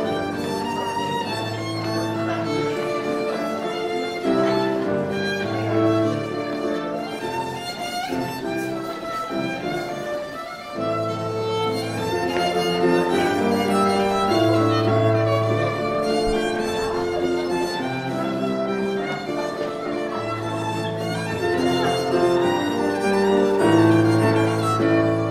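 Fiddle-led English country dance tune: a violin carries the melody over a lower accompaniment of held bass notes.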